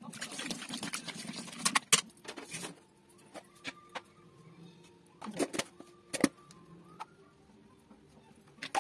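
Metal clinks and clatter from handling a metal cooking vessel of raw chicken: a busy stretch of clattering and rustling for the first few seconds, then a few sharp single clinks spaced out.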